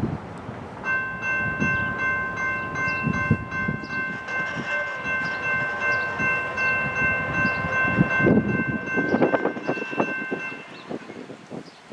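Air horn of a Norfolk Southern GE ET44AC locomotive sounding one long multi-note chord as the train approaches, sounded for a grade crossing. It starts about a second in, and its notes drop out one after another near the end.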